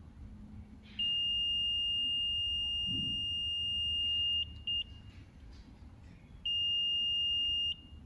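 Slope indicator's warning buzzer sounding one steady high-pitched tone for about three and a half seconds, a short blip, then the tone again for just over a second. This is the over-angle alarm, sounding while the tilt is past its limit.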